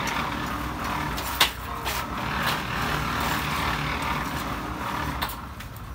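An engine running steadily, with one sharp click about a second and a half in.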